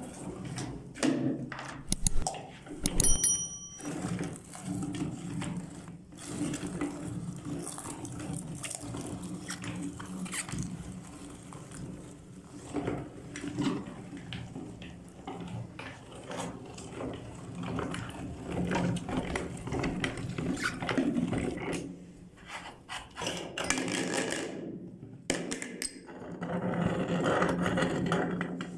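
Meat grinder running with a steady hum while it grinds chili peppers, with scraping and knocking throughout. It pauses briefly near the end, then starts again.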